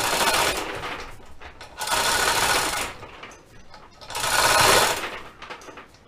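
Hand chain hoist being hauled to lift a machine saddle: the chain rattles and clatters through the hoist in bursts about a second long, roughly every two seconds, one burst per pull.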